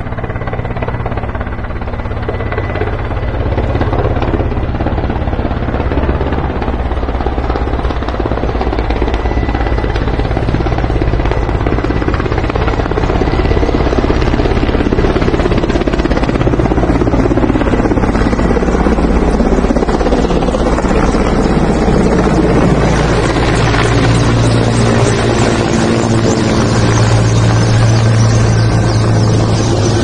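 Firefighting helicopter's rotor and engine drone, steady and loud, growing louder about halfway through.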